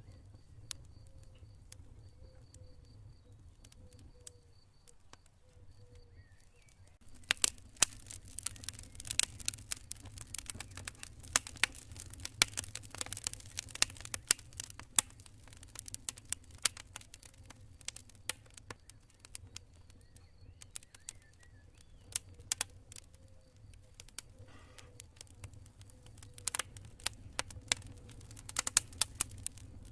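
Wood fire crackling: a few scattered pops for the first seven seconds, then dense sharp snaps and pops. Crickets chirp faintly in the quieter stretches, over a low steady rumble.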